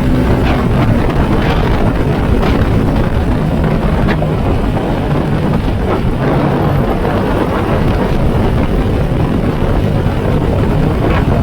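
Yamaha Sniper 150's single-cylinder four-stroke engine running under way as the motorcycle is ridden, its note shifting up and down with the revs.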